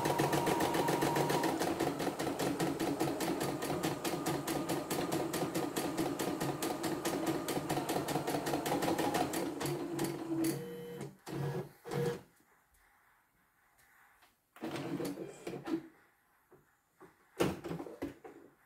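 CNY E960 computerised embroidery machine stitching a design with a rapid, even stitch rhythm, stopping about ten seconds in. After that come a few scattered clicks and knocks as the embroidery hoop is handled.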